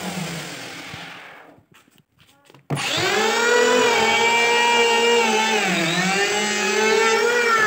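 DCK electric hand planer motor winding down and fading out, then, after about a second of near silence, starting up abruptly and running with a steady high whine. About six seconds in the pitch sags briefly and recovers, as the blades load up cutting into the wood.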